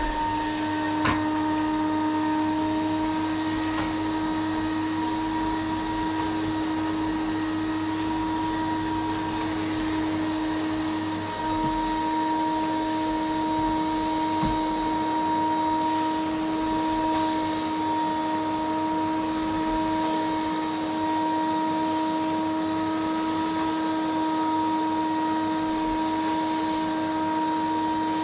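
Vacuum cleaner running steadily, its motor giving a constant whine over a steady rush of air. A faint click comes about a second in.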